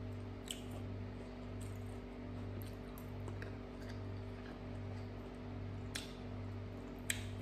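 Quiet eating at a table: a fork clicking against a plate of food a few times, over a steady low electrical hum.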